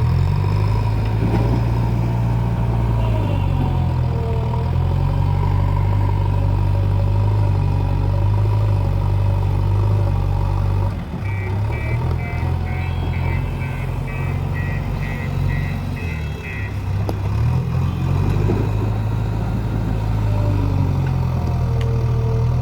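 JCB 3DX Eco Xpert 49 hp backhoe loader's diesel engine working under changing load, its note dipping and recovering twice. A beeper pulses about twice a second for several seconds midway.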